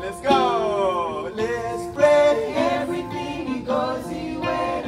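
Live singing accompanied by an acoustic guitar: the opening of a song, with held notes and notes that slide downward.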